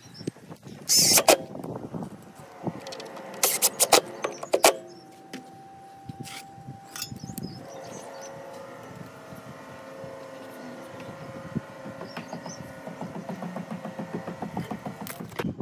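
Several sharp metal clacks and knocks from metal gutter hangers being handled against the wooden eave, followed by a steady machine hum.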